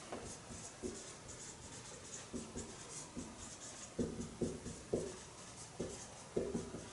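Faint writing: a series of short pen or marker strokes on a writing surface, sparse at first and coming more often in the second half.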